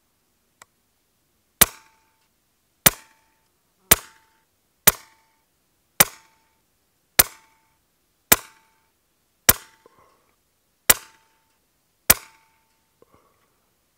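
A .22 Daystate Red Wolf pre-charged pneumatic air rifle firing slugs at a steady pace: ten sharp cracks about a second apart, each followed by a brief ringing tone.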